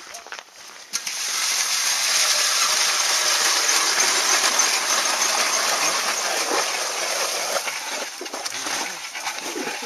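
Several hand-cranked ice augers boring into lake ice at once, a steady scraping crunch of the cutting blades shaving ice. It starts about a second in and thins out near the end as one auger stops.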